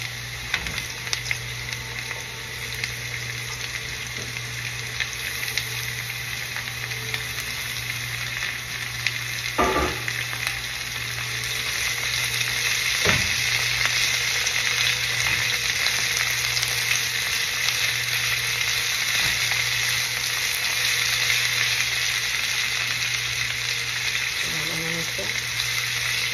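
Sliced bitter melon sizzling in hot oil in a frying pan with onion and garlic while it is tossed with tongs. The sizzle grows louder about halfway through, and two sharp knocks stand out a few seconds apart.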